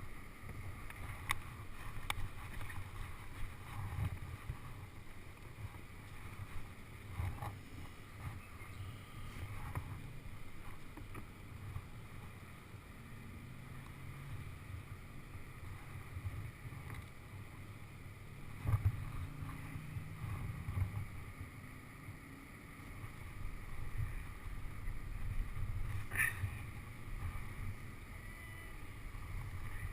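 Kayak paddling on the water: paddle strokes and water splashing and lapping around the hull, with a few sharper knocks. Under it runs a low rumble of wind on the microphone.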